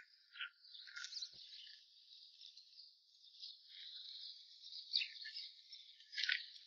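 Faint, high squeaking and scraping from a row of Tibetan Buddhist prayer wheels turning on their spindles as they are spun by hand, in many short squeaks one after another.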